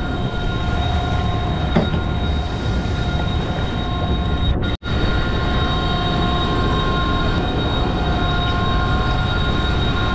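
Steady machinery drone with several fixed high whining tones over a rushing noise, cut off for an instant about halfway through.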